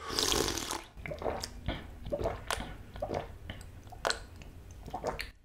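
Close-miked mouth sounds of a mukbang: a short rush of noise in the first second, then scattered wet clicks and smacks of the lips and tongue.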